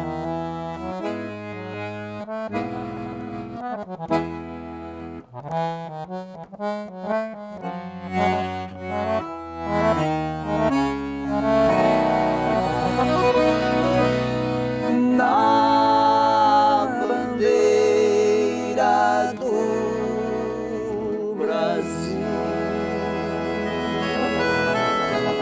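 Accordion playing an instrumental passage of a gaúcho song. Short, detached chords over bass notes come first, then longer held chords over a steady bass line.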